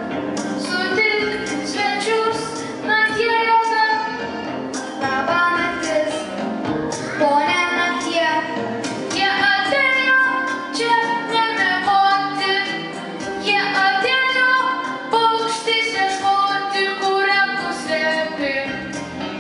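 Children singing a melody through microphones with musical accompaniment.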